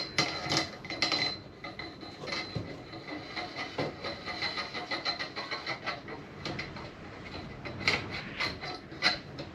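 Coil spring being fed into a Honda Transalp 700 fork tube: repeated metal clinks and scraping of the coils against the tube over a faint metallic ring, with the sharpest clinks at the start and again near the end.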